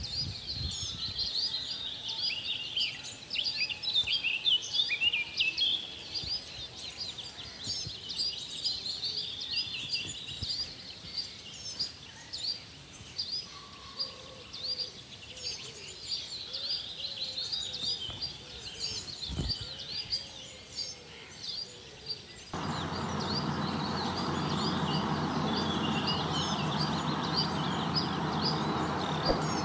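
Small birds chirping in a busy, overlapping chorus of short, high calls. About 22 seconds in, a steady rushing noise starts suddenly underneath and is louder than the birds, with a thin high tone for a few seconds after it.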